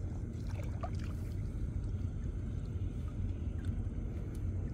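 Small river boat's engine idling, a steady low rumble, with a few faint light taps.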